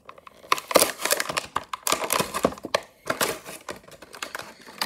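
Die-cast toy car's plastic blister pack and cardboard backing card being torn open and handled: irregular crinkling and crackling with sharp clicks.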